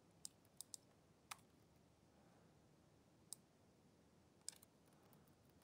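Faint, scattered clicks of a computer mouse and keyboard, about seven in all, against near silence.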